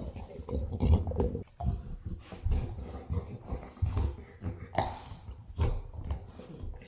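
A Cane Corso making low, irregular growls and grunts while chewing a hard chew toy, with a few short clicks from gnawing.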